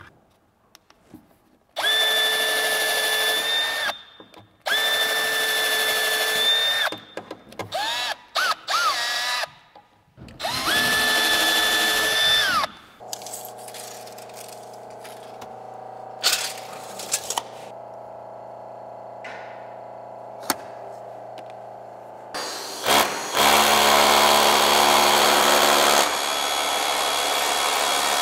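Cordless drill running in three steady runs of about two seconds each, with short stop-start trigger bursts that speed up between them, as it works into the staircase timber. After a quieter steady hum in the middle, the drill runs loud and steady again for a few seconds near the end.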